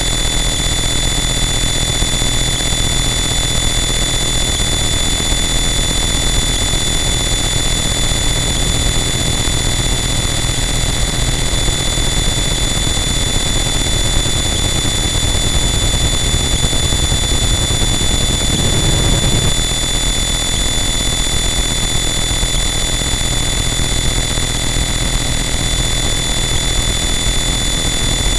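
Harsh noise wall: a loud, unchanging wall of dense static with steady high whining tones over a heavy low rumble. A brief swell in the low end comes about two-thirds of the way through.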